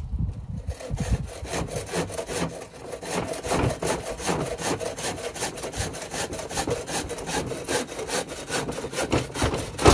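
Handsaw cutting through a wooden batten with quick, even back-and-forth strokes, each stroke a rasp of teeth in wood.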